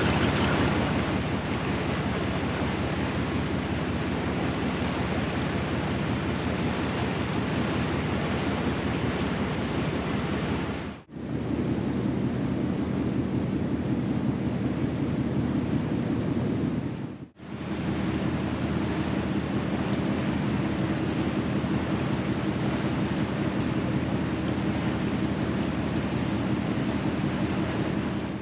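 A ferry's diesel engine drones steadily, under the rush of wind and water. Two brief breaks mark cuts between shots.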